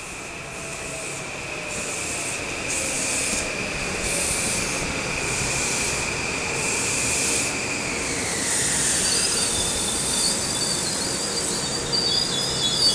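Metro-North M8 electric train slowing into a station stop: a steady high electric whine falls in pitch about eight seconds in as the train slows, over the rumble of the cars rolling on the rails. A high-pitched squeal sets in near the end as the train comes to a stop.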